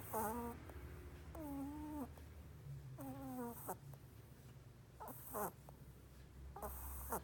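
A rabbit snoring in its sleep: about five short whistle-like squeaks with gliding pitch, roughly one every one and a half seconds, some with a breathy hiss.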